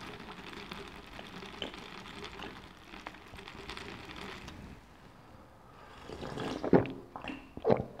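Person gulping down an iced lemon-lime sports drink from a plastic cup, with two loud swallows near the end, close to a clip-on microphone. Before that, only a faint steady hiss.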